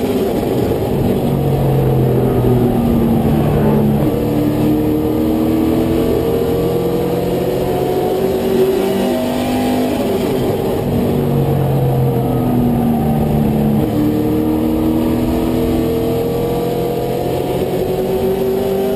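Race truck's engine heard from inside the cab at racing speed, its revs climbing and dropping in a repeating cycle about every ten seconds as it laps the oval.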